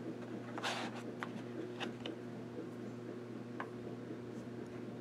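Small plastic sample vials from a DNA test kit being handled on a tabletop: a few light, scattered clicks and taps over a steady low hum.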